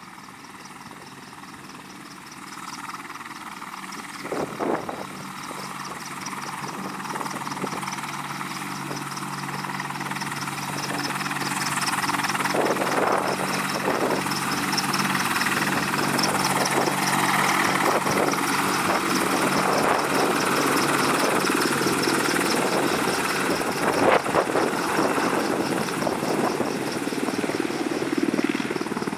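Boeing AH-64 Apache attack helicopter running, its rotor and turbine engine noise growing louder over the first ten seconds or so, then holding steady. A couple of brief knocks cut through about four seconds in and near the end.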